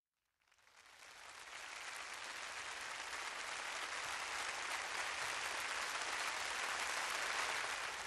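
Audience applauding, fading in from silence over the first second or two and then holding steady.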